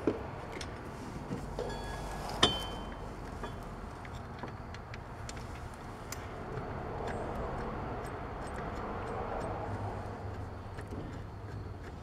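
Small metallic clicks and clinks of a caliper mounting bolt and hand tools being handled, with one sharp ringing clink about two and a half seconds in, over a low steady hum.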